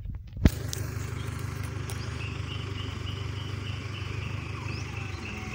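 Diesel engine of a timber-laden lorry idling with a steady low hum, after a sharp click about half a second in.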